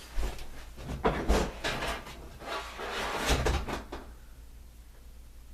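Rummaging and handling of toys and objects: a series of knocks, rattles and a few dull thumps that die down after about four seconds.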